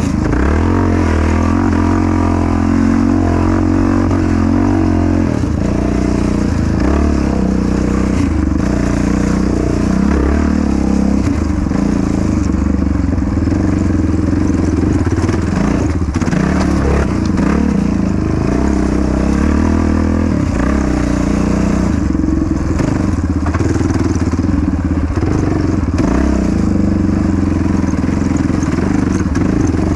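Yamaha Raptor 700 quad's single-cylinder four-stroke engine running under race load, its pitch repeatedly rising and falling as the throttle is opened and closed.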